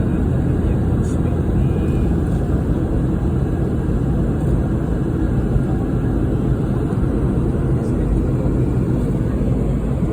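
Steady cabin noise of a Boeing 717-200 in flight: airflow and its two rear-mounted Rolls-Royce BR715 turbofans, an even rushing sound weighted to the low end.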